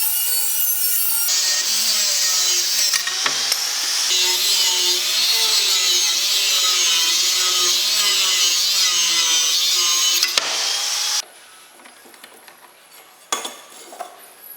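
A power tool cutting into wood. A motor runs with a steady whine, and about a second in a loud rasping cut begins, the motor pitch wavering under load. It stops abruptly near the eleventh second, followed by a couple of faint clicks.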